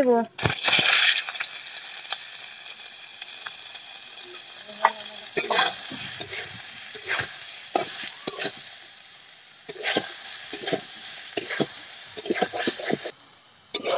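Boiled soya chunks hitting hot oil in a kadai: a sudden loud sizzle about half a second in, then steady sizzling as they fry. A metal spatula scrapes and knocks against the pan throughout as they are stirred. The sizzle drops away near the end.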